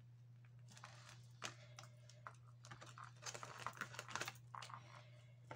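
Faint clicks, taps and rustles of hands working with a marker and a ring-bound paper planner with plastic sleeves: writing, the marker set down on the table, pages handled. The clicks come irregularly and bunch up in the middle of the stretch.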